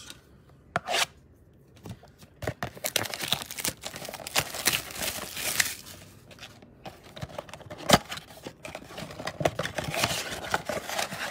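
Plastic shrink-wrap being torn off and crinkled on a cardboard trading-card blaster box as the box is opened, a dense crackling starting about two and a half seconds in. A sharp snap about eight seconds in is the loudest sound.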